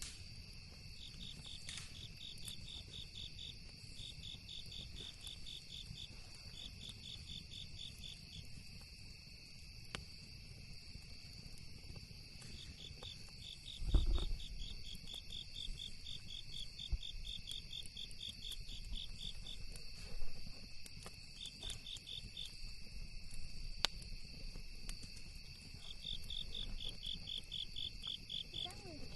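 Night insects and crickets: two steady high trills under trains of rapid chirps that come in bursts of a second or two. Sharp crackles from the campfire come here and there, over a low rumble, and a louder thump falls about halfway through.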